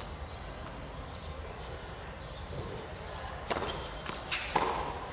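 Tennis ball struck by rackets on a hard court: a sharp hit of the serve about three and a half seconds in, then another hit and a bounce within the next second, over faint crowd murmur.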